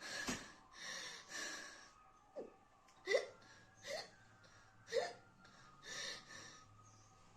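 A woman hiccuping repeatedly, roughly once a second, with gasping breaths in between, brought on by eating an extremely hot chili chip.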